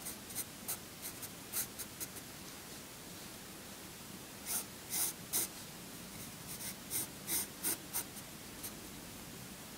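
Pencil scratching across drawing paper in short sketching strokes, in groups of quick strokes with a pause of a couple of seconds after the first group; the strokes stop about a second before the end.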